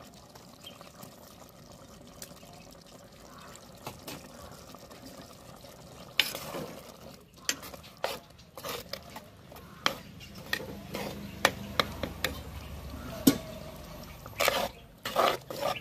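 A steel spoon stirs thick curry in an earthenware clay pot. From about six seconds in it clinks and scrapes against the pot many times, and before that the curry simmers faintly.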